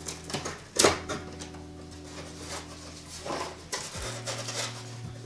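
Folding knife slitting the packing tape on a cardboard shipping box, then the flaps being pulled open. Short scrapes and crackles, the sharpest about a second in, with cardboard rustling.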